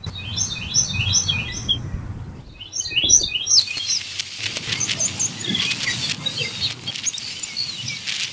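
Birds chirping outdoors, with scattered light clicks and rustle. Near the start there are two quick runs of high chiming notes.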